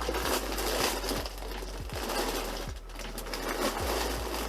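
Packaging rustling and crinkling as items are handled in a box, with scattered small clicks, over a low hum.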